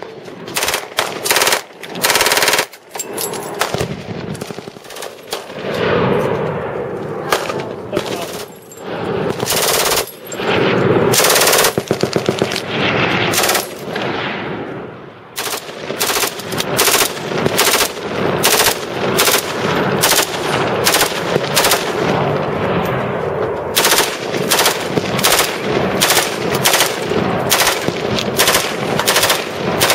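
Full-auto gunfire from several machine guns and submachine guns, one gun after another, including an MG42. It comes in loud bursts, some dense and sustained, and in the second half as short bursts in quick succession.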